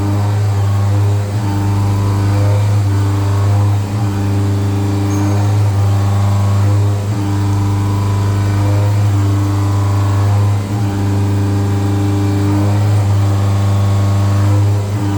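A CNC milling machine running with a steady, loud, pitched hum that dips briefly every few seconds.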